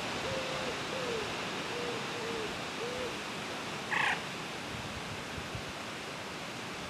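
A bird cooing: about five short, low hoots in quick succession in the first three seconds, over steady outdoor wind noise. About four seconds in comes one brief, sharper, higher-pitched call.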